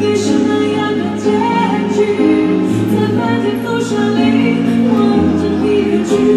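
A woman singing a slow song live into a microphone, amplified through a PA, with electronic keyboard accompaniment playing held chords.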